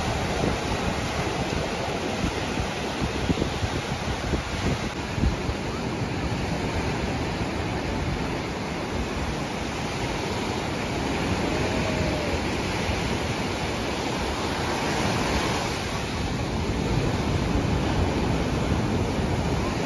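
Sea surf breaking and washing up over a sandy beach, a steady rushing noise, with wind buffeting the microphone in gusts during the first few seconds.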